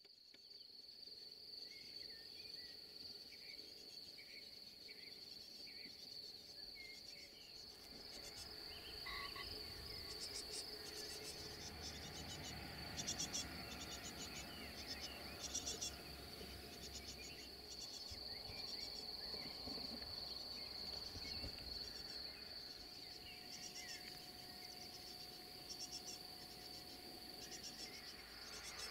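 Insects trilling steadily on one high pitch. From about eight seconds in, short clusters of even higher rapid chirps repeat every second or so, and a few softer chirps come in the first seconds.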